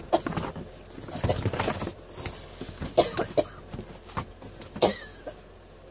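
Handling noises from cleaning a plastic cat litter pan: a plastic bag rustling and plastic tools knocking against the plastic tub, in irregular clicks and short scrapes, with sharper knocks about three seconds in and just before five seconds.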